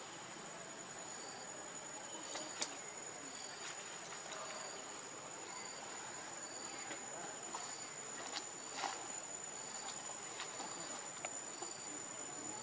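Insects droning with a steady high-pitched note, with a short chirp repeating about once a second. A few faint clicks and rustles are scattered through it, the sharpest about two and a half seconds in.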